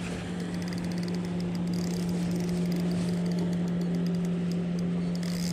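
Spinning reel being wound in against a hooked fish, with faint quick ticks, over a steady low hum from the boat.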